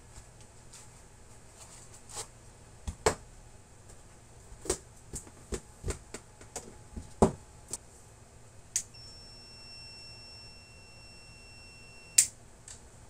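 Knocks and clicks of an AKS long-range locator being handled and its aluminium carry case closed, then a click and one steady high-pitched beep from the locator, lasting about three seconds before another click cuts it off near the end.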